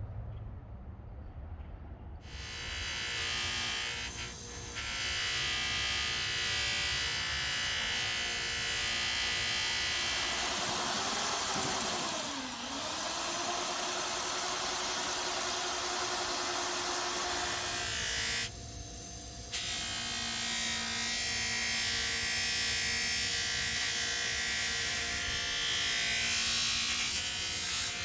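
Electric bench motor spinning a cleaning wheel against a steel T-handle slide bar, a steady whine that starts about two seconds in. Its pitch sags once, as if the wheel is pressed hard, and it drops out briefly later on.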